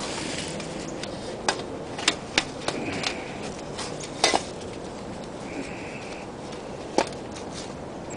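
Sharp metallic clicks and rattles from a wire live-trap cage being handled as its door is worked open, about half a dozen separate clicks spread over several seconds.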